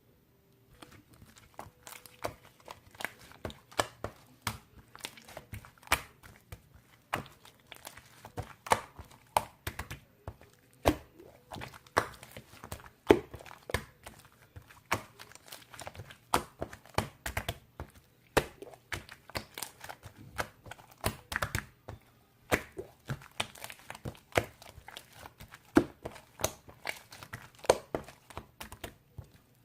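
Irregular sharp clicks, crackles and crinkles, several a second, from something being handled close up.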